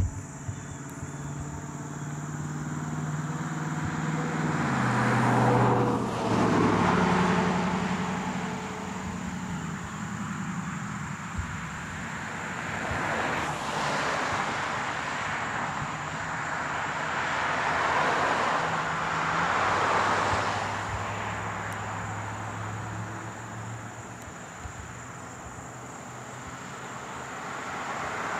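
Road vehicles passing one after another, each swelling up and fading away. About six seconds in, one passes with an engine note that drops in pitch as it goes by.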